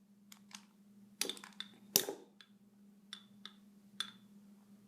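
A handheld lighter being clicked and handled: a run of sharp clicks, some with a brief high ring, the loudest about two seconds in. A steady low electrical hum sits underneath.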